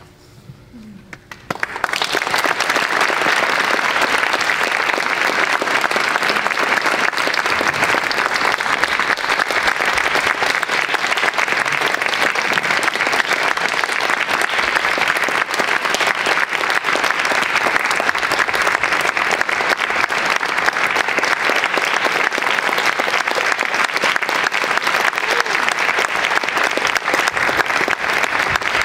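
Audience applause breaks out about two seconds in and continues steadily.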